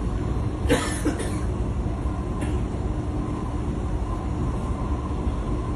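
Steady low rumble and hum of an MRT train carriage in motion, with a man coughing twice, harshly, about a second in and once more faintly a little later.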